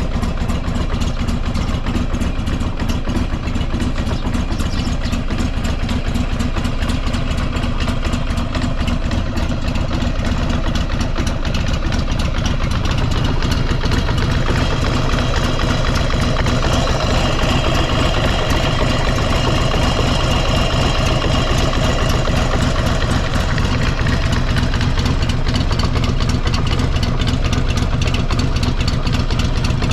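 Buell XB12SCG Lightning's air-cooled V-twin idling steadily with an even pulse, a little fuller from about halfway through; the seller describes it as running without abnormal noises.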